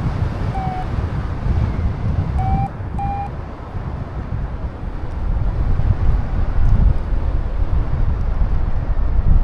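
Strong wind buffeting the microphone, a loud low rumble that eases briefly in the middle, with three short beeps from a paragliding variometer in the first few seconds.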